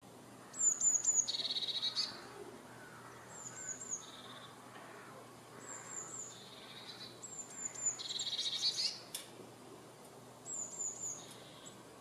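Eurasian blue tit singing: about five phrases, each a few thin, high, falling notes followed by a lower trill. The loudest phrases come near the start and again about eight seconds in.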